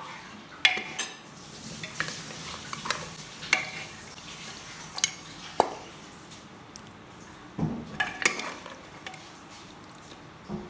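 A steel ladle clinking and scraping against the sides of a pressure cooker and a ceramic bowl as meat in thick gravy is served out: about a dozen sharp metallic clinks at irregular intervals, with a soft thump about seven and a half seconds in.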